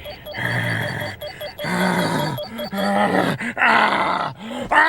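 A man roaring and growling in an imitation of the Hulk, in several loud bursts.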